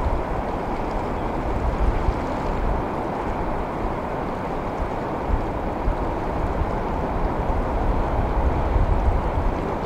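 Steady wash of ocean swell and surf, with wind rumbling on the microphone in uneven gusts.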